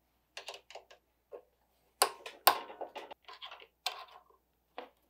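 Light metallic clicks and scrapes as the DeWalt DW735 planer's gearbox housing is worked loose and slid partway out by hand, with two sharper knocks about two seconds in.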